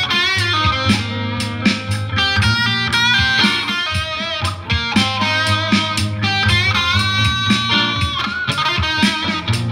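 Instrumental music led by a guitar playing a melody with notes that bend in pitch, over a steady bass line and drum hits.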